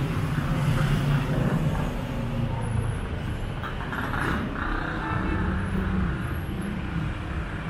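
Street traffic: vehicle engines running and passing, with a steady low rumble.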